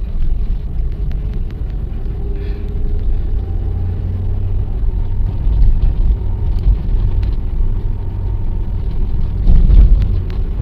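Car driving, heard from inside the cabin: a steady low rumble of engine and road noise that swells briefly near the end.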